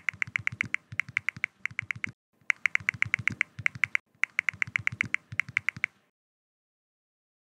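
Rapid keyboard typing clicks, about eight keystrokes a second, in three quick runs with short pauses between them. The typing stops about six seconds in.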